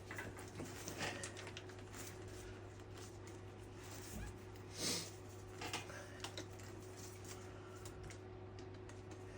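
Scattered light clicks and taps of metal hand tools and engine parts being handled on the workbench, with one louder knock about five seconds in, over a steady low hum.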